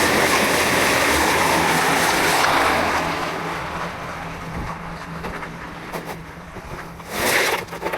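An engine running steadily under a loud rushing noise that fades away about three seconds in, with a short burst of noise near the end.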